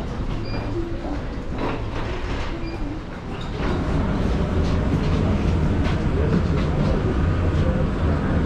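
Footsteps and a wheeled suitcase rolling along a jet bridge walkway, with light irregular clacks, over a low steady rumble. The rumble grows louder about three and a half seconds in, as the walkway nears the parked airliner.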